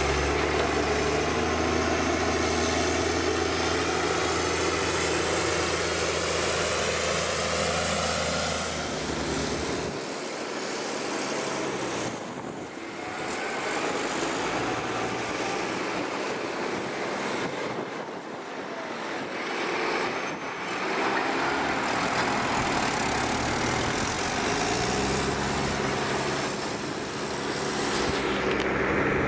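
Tractor diesel engines working on a silage pit. A steady engine note runs for about the first nine seconds as a Case IH Puma 210 pushes grass with a buckrake. Then comes a quieter, rougher stretch, and a steady engine note returns near the end from a tractor pulling a silage trailer.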